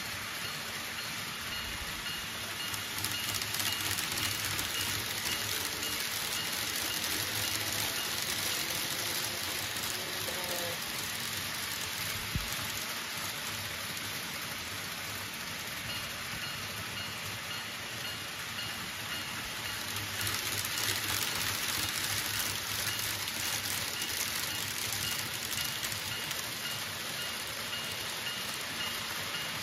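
Model trains running on the layout's track: a steady hiss of wheels and motors rolling along the rails, swelling twice as trains pass closer.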